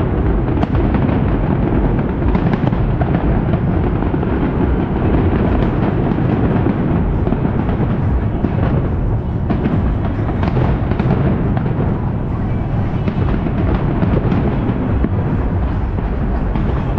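Fireworks display: a dense, continuous barrage of firework bursts whose booms run together into one rumble, with many sharper cracks on top and music playing underneath.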